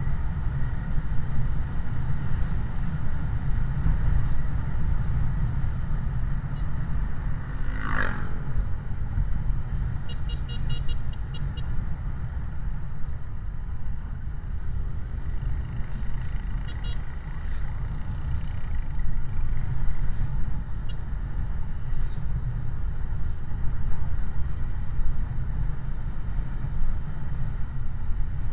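Steady low road and wind rumble from a vehicle moving through traffic, with a sharp click about eight seconds in and short runs of fast, high pulsing beeps about ten and seventeen seconds in.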